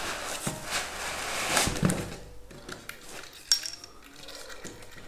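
Handling noise as a small metal laser projector is worked free of a foam insert in a hard carrying case and lifted out: about two seconds of scraping and rubbing against the foam, then a sharp click and a few light knocks.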